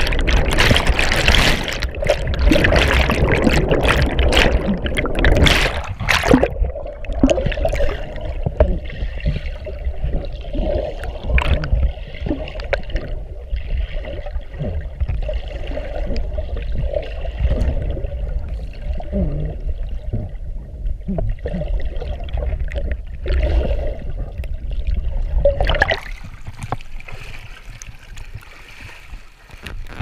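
Water rushing and splashing around a camera carried down a waterfall and under the water. Loud splashing for about the first six seconds gives way to muffled underwater gurgling with scattered knocks. The sound turns clearer a few seconds before the end as the camera comes up into the splashing.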